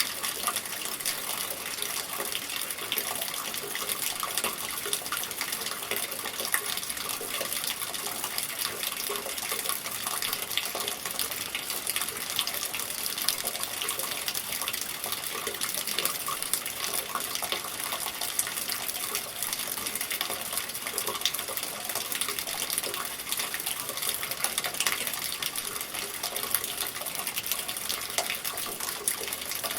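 Steady rain, a dense patter of drops over an even hiss that stays constant throughout.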